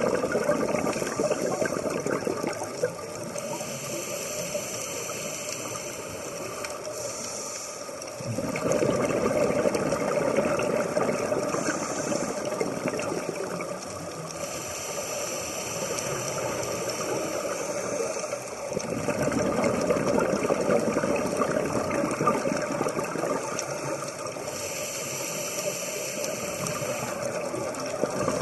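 Scuba diver breathing through a regulator underwater: loud bursts of exhaled bubbles burbling, alternating with the quieter hiss of each inhalation, in a slow cycle of roughly ten seconds.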